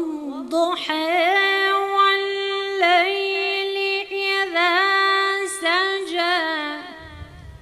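A woman's voice chanting Quranic recitation in melodic tajweed style. It holds one long note with several quick ornamental trills, then falls in pitch and fades near the end.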